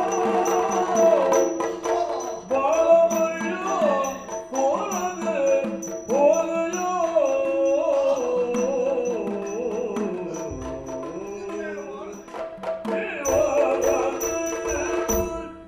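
Yakshagana theatre music: a singer's wavering, ornamented melody over a steady drone, with drum strokes throughout. The singing fades out about three-quarters of the way through and a new passage of drone and drumming begins.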